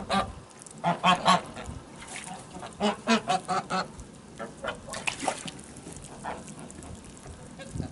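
A flock of domestic white geese honking: loud runs of repeated honks about a second in and again about three seconds in, then scattered quieter honks.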